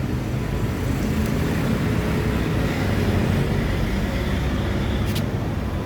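Steady low rumble like vehicle traffic, with one sharp click about five seconds in.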